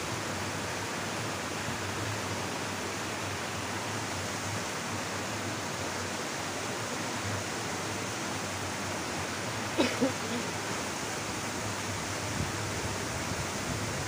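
Steady rush of water pouring over a small cascade into a shallow stream. A brief, faint pitched sound comes about ten seconds in.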